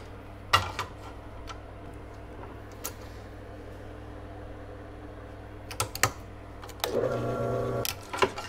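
Sharp clicks and knocks of a plastic block and a clamp being handled and set on a drill press table, over a steady low hum. The loudest click comes about half a second in, and a louder whir lasts about a second, starting near seven seconds.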